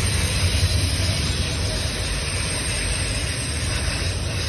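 Norfolk Southern manifest freight train's cars rolling past close by, a steady low rumble of wheels on the rails.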